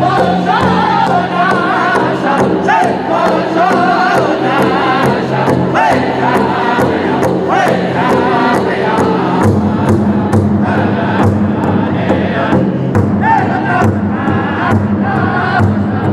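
Powwow drum group: several men beating a large hide-headed drum together in a steady, even beat of about two strikes a second while singing a high-pitched chant in unison.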